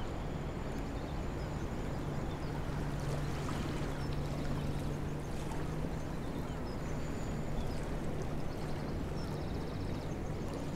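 Steady rush of flowing river water, with a faint low hum running through most of it.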